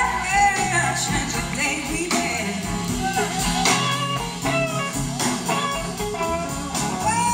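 A live blues-rock band playing: electric guitars over drums, with a gliding lead line on top.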